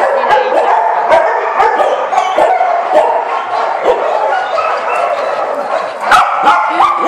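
Several dogs barking over one another without pause, a loud, dense chorus.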